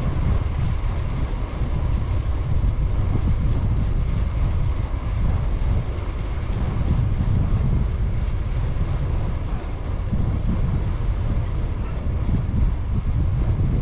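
Wind buffeting the microphone of a camera on a moving bicycle: a steady, fluttering low rumble.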